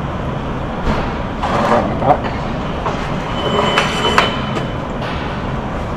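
Metal scraping and clunking as a bus wheel hub is worked off its axle, with a brief thin high squeal about halfway through, over a steady workshop background noise.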